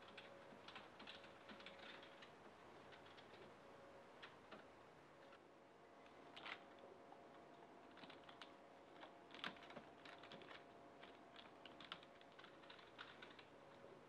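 Faint typing on a computer keyboard: irregular runs of soft key clicks, with a few louder keystrokes around the middle, over a faint steady hum.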